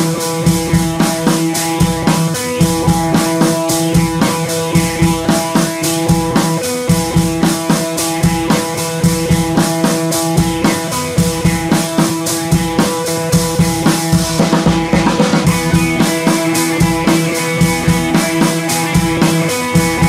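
Background music with drums and a steady beat.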